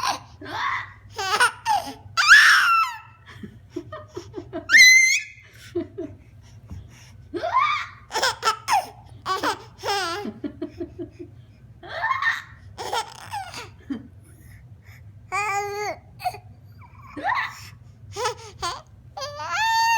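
A young child laughing and squealing in a string of short, high-pitched outbursts with brief pauses between them.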